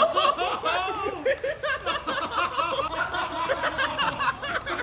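People laughing, a continuous run of short, quick laughs.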